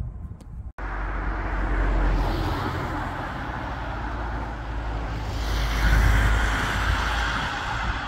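Road traffic going by: a steady low rumble and hiss that swells twice as vehicles pass. The sound cuts out sharply for an instant less than a second in.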